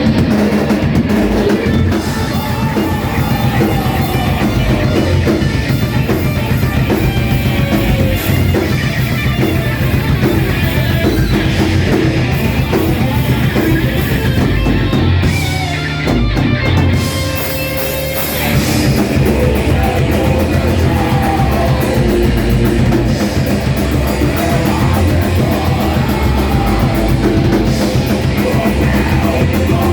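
Live rock band playing heavy, distorted electric guitar with bass and a drum kit. About fifteen seconds in, the drums and low end drop out briefly, then the full band comes back in.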